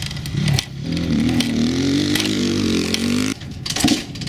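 KTM 250 SX two-stroke dirt bike engine running unevenly for a few seconds after its head gaskets were replaced, then cutting out abruptly a little over three seconds in.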